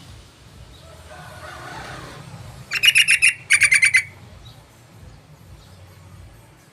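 Yellow-vented bulbul (trucukan) giving two quick chattering bursts about three seconds in, each a rapid run of sharp repeated notes, roughly half a second long, with a short break between them.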